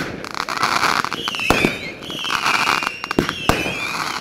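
Fireworks going off in quick succession: a run of whistling, hissing shots about a second apart, with sharp bangs among them.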